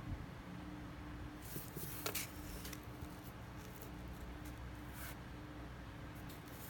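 Faint handling sounds: fingers setting a spring-loaded wire double hook and laying it on paper, with a few short soft scrapes and rustles about one and a half to two seconds in and again near five seconds, over a faint steady hum.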